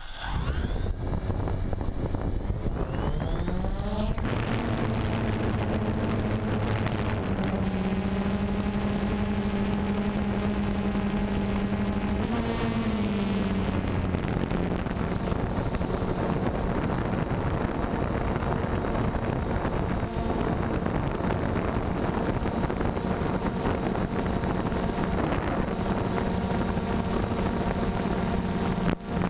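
Multirotor drone's electric motors and propellers, heard from its own on-board camera: a buzz that climbs in pitch as the rotors spin up and it lifts off in the first few seconds, then a steady hum of several tones that shifts pitch briefly about twelve seconds in. Wind rushes over the microphone throughout.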